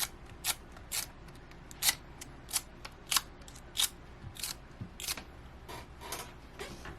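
Dust-removal sticker film being dabbed onto a phone's glass display and pulled off again, over and over, each lift a short crackly tick, about one and a half a second.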